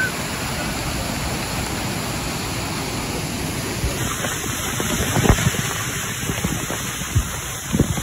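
Waterfall pouring off a dam, a steady heavy rush of water. About halfway in, the phone is under the falling spray, and sharp splashes and thumps of water striking it close up break through the rush.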